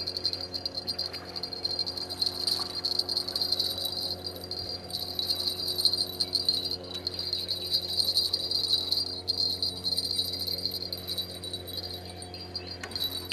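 Crickets chirping in a continuous high, fast-pulsing chorus, with a low steady hum underneath.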